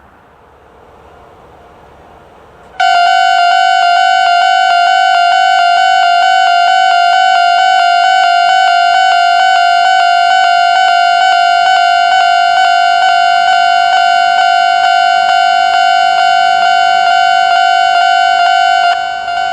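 Railway level-crossing warning bell, the old standard electronic type, starts suddenly about three seconds in and rings in rapid, even repeated dings on one steady pitch. This crossing's alarm units are known to sound out of step with each other.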